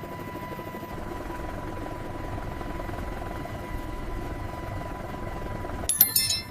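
Steady low rumble of an aircraft in flight, under a thin steady high tone. A short burst of high-pitched clicks comes about six seconds in.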